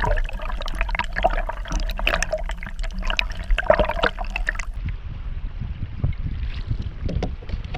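Water gurgling and splashing close by for about four and a half seconds, then stopping, over a steady low rumble of wind on the microphone.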